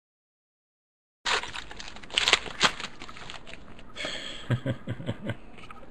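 After about a second of dead silence, a trading-card pack's foil wrapper crinkles and crackles as it is opened, followed by the clicking and rustling of cards being pulled out and fanned.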